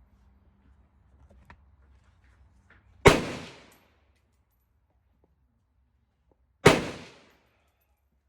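Two loud rifle shots from an AR-15 being zeroed, about three and a half seconds apart, each cracking sharply and ringing out briefly.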